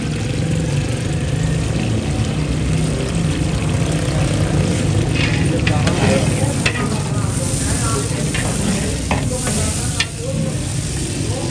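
Sliced onions sizzling in oil in a large aluminium cooking pot while a metal ladle stirs them, scraping against the pot with several sharp scrapes in the second half. A steady low rumble runs underneath.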